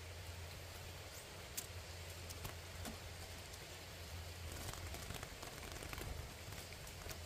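Faint scattered taps and fluttering from a small bird beating its wings against the bars of a trap cage, over a steady low hiss. The tapping is busiest from about four and a half to six seconds in.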